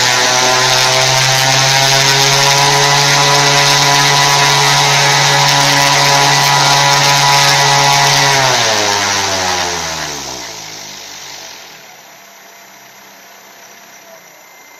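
Homemade 320 kV brushless motor driving a 21x10 propeller at high power, a steady whine with a rush of air. About eight and a half seconds in it spins down, the pitch falling as it slows, and it stops about two seconds later.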